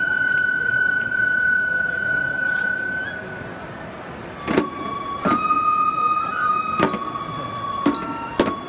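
Live stage music: a flute holds long, steady high notes, shifting to a lower note about halfway through. Sharp percussion strikes join it, coming a little more often than once a second.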